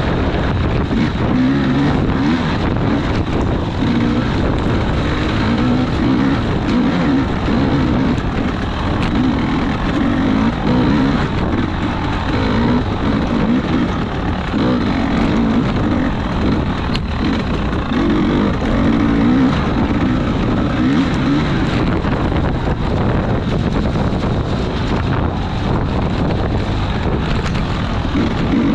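Off-road race vehicle's engine running hard, its pitch rising and falling with the throttle throughout.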